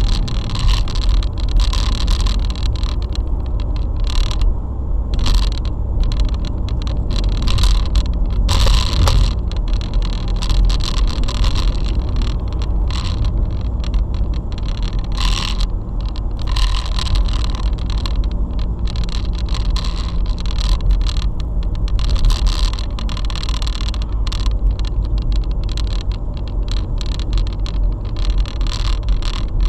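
Cabin noise of a moving car recorded by a windscreen dashcam: a steady low road-and-engine rumble, with frequent irregular clicks and scrapes over it.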